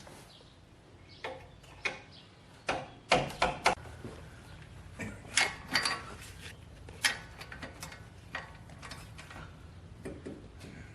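Hand ratchet clicking in short, irregular runs as a bolt on a car's upper control arm is backed out, with an occasional metal clink.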